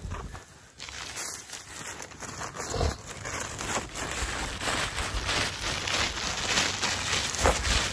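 Irregular rustling and crinkling noises, many short scratchy crackles in close succession.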